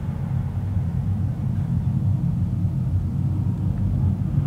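Jet airliner's engines at high thrust for takeoff, heard from a distance as a steady deep rumble that grows slightly louder.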